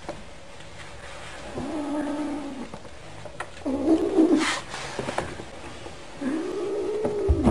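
Ginger kitten giving three low, drawn-out yowling calls, each about a second long, while holding something in its mouth; the last call rises and falls.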